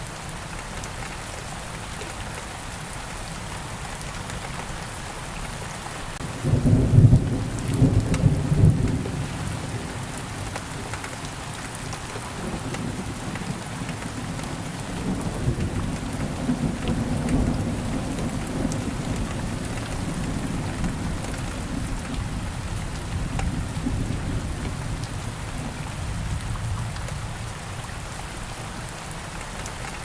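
Steady rain falling, with a loud thunderclap about six seconds in and further low rolling rumbles of thunder through much of the rest.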